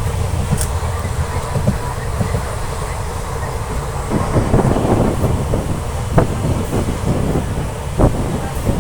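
Moving passenger train heard from on board: a steady low rumble of the wheels on the rails, with the clatter of wheels over the track growing busier about four seconds in.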